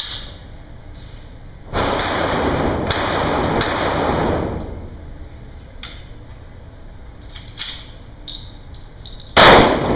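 Handgun shots echoing off the concrete walls of an indoor range. About two seconds in, a shot's echo rings on for a couple of seconds. A few light clicks and knocks follow, then a much louder shot comes near the end.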